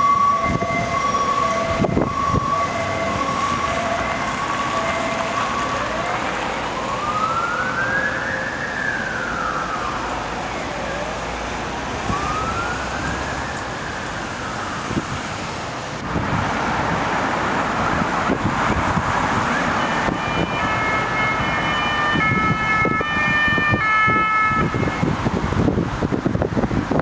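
Ambulance sirens in traffic. A two-tone hi-lo siren alternates between a low and a high note and fades after about five seconds. A wail then rises and falls slowly twice. About twenty seconds in, another two-tone siren comes in over the traffic noise for a few seconds.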